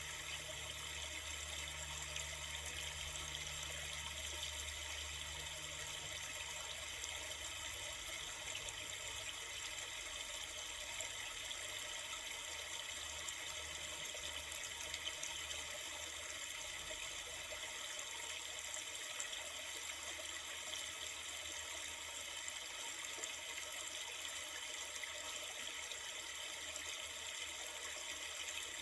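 Flowing river: a steady, even rush of running water.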